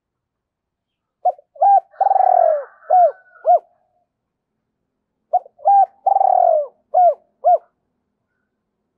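Spotted dove cooing its song twice, about four seconds apart. Each phrase is two short coos, one longer coo falling in pitch, then two more short coos.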